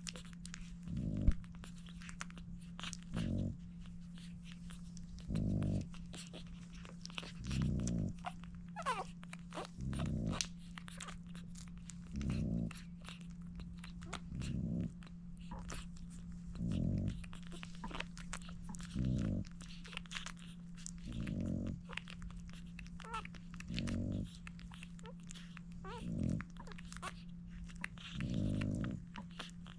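Newborn French bulldog puppies nursing: fast, wet suckling clicks and an occasional short squeak, over the mother French bulldog's slow, heavy breathing, about one breath every two seconds.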